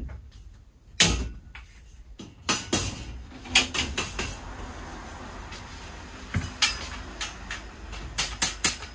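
Hard objects being handled and set down: a string of knocks and clatters, with a loud knock about a second in and quicker clacks near the end.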